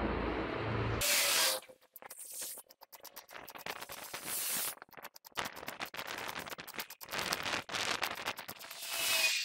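Stick arc welding on a steel truck swing arm shaft: irregular crackling and sputtering, starting about a second in. Before it, a steady noise with a low hum cuts off abruptly.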